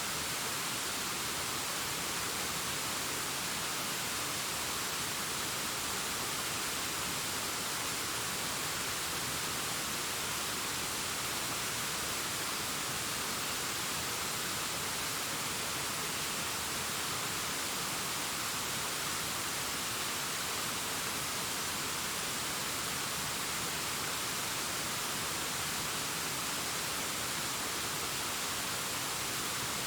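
Distant waterfall cascading down a rock face: a steady, even rush of falling water, heavier in the hiss than the rumble.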